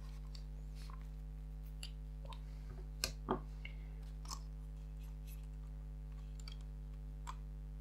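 Faint clicks and taps of plastic as a camcorder's housing is handled and pulled apart, with two sharper clicks about three seconds in, over a steady low electrical hum.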